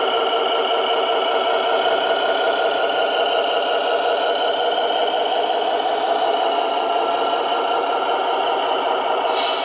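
Steady engine idle from an RC scale truck's sound module, a constant mid-pitched running sound with no low rumble. A brief hiss comes near the end.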